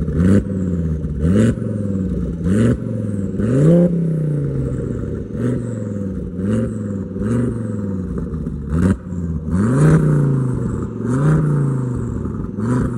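Volvo V70 T5's turbocharged 2.3-litre inline-five revved through a 3-inch exhaust with a downpipe and Borla and Magnaflow straight-through mufflers: about a dozen quick throttle blips, mostly about one a second, a couple held a little longer before the revs fall back. Each blip starts with a short, sharp burst of noise.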